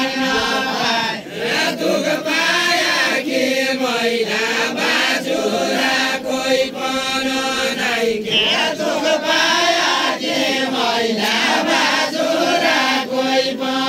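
Voices chanting in a continuous sung, intoned line.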